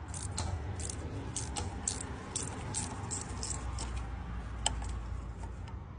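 Ratcheting box-end wrench clicking in short irregular runs, a few clicks a second, as it works a half-inch U-joint nut loose, with one sharper click near the end. A steady low hum runs underneath.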